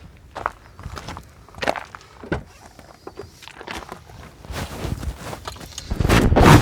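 Footsteps walking at an unhurried pace, one step roughly every half second to second. About six seconds in, a loud swelling noise rises over them.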